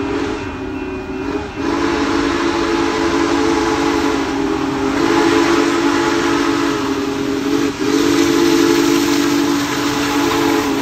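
Union Pacific Big Boy No. 4014 steam locomotive blowing its chime whistle in a series of long blasts with brief breaks, the grade-crossing warning, as it approaches. The whistle's chord sits over a rising rush of steam and running noise from the locomotive drawing near.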